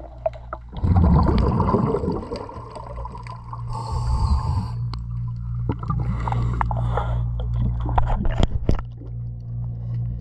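Underwater sound of a diver breathing: a loud rush of exhaled bubbles about a second in, hissing inhales around four and six seconds, then sharp clicks and knocks near the end as a gloved hand works against the hull, over a steady low hum.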